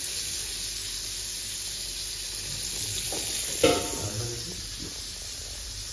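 Grated carrot sizzling as it fries in ghee in a steel kadai for gajar halwa, a steady hiss, with one sharp knock about three and a half seconds in.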